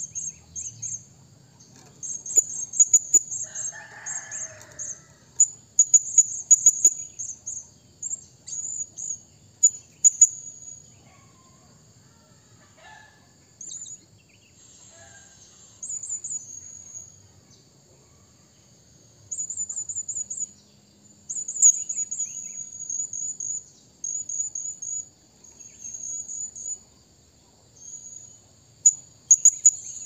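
Blue-crowned hanging parrot (serindit) giving bouts of rapid, very high-pitched chirps, several bursts separated by short pauses: its call to rival birds.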